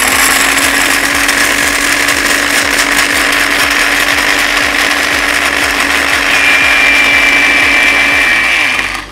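Small electric blender with its dry-grinder cup running, grinding roasted coffee beans: a loud, steady motor whine and grinding noise, with a higher whine joining about six seconds in, cutting off just before the end.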